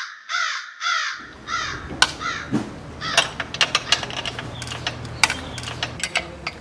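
Crows cawing, a few harsh calls in quick succession over the first second and a half. Then a low steady hum with sharp clicks and taps at uneven spacing, fitting hand work on a motorcycle.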